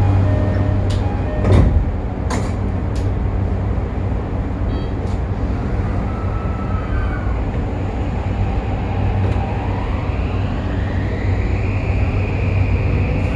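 Toei 5500-series subway car's Mitsubishi full-SiC VVVF inverter heard from inside the car as the train pulls away: a whine that rises steadily in pitch from about eight seconds in. Before it, over a steady low hum, come a few sharp knocks in the first three seconds.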